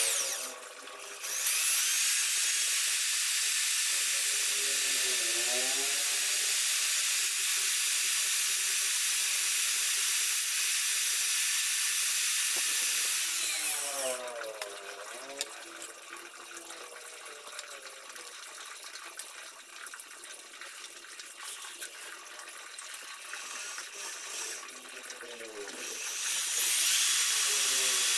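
Hand-held electric drill running at speed, spinning a sandpaper-wrapped rod inside the small end of a Yamaha Mio connecting rod to open up the bore, which seized on its piston pin when the engine ran out of oil. It runs steadily for about twelve seconds, goes much quieter for about twelve, then starts again near the end.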